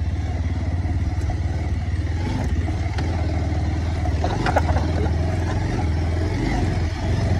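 Motorcycle running at riding speed over a rough, rutted dirt track, with a few short rattles partway through.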